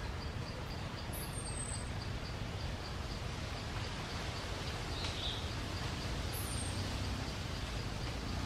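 Outdoor forest ambience: a steady low rumble and hiss, with an insect chirping in a regular pulse about four times a second. Two brief high falling whistles sound about five seconds apart.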